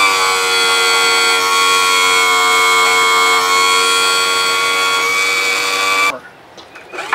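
Electric pump motor of an outboard power tilt-and-trim unit running with a steady whine, cut off about six seconds in and started again near the end. The unit has just been filled with fluid and is being cycled to work air out of it.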